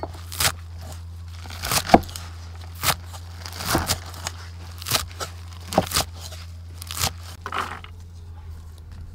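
A cleaver chopping through a bundle of crisp green vegetable stems on a wooden board: sharp crunching chops about once a second, stopping about eight seconds in.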